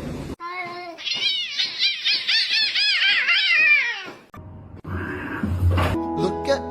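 A cat meowing in a quick string of short calls, each rising and falling in pitch, about three a second, for some four seconds. Music comes in near the end.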